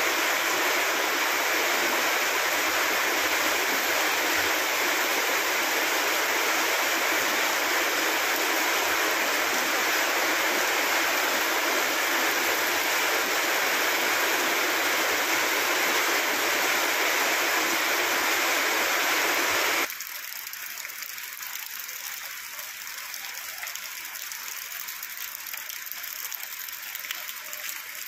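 Steady rush of heavy monsoon rain and running water. About twenty seconds in it cuts abruptly to a quieter, hissier rain sound.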